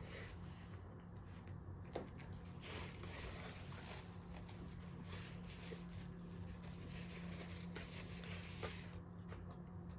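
Faint chewing and wet mouth sounds of someone eating fast food, with a few small soft clicks over a low steady hum.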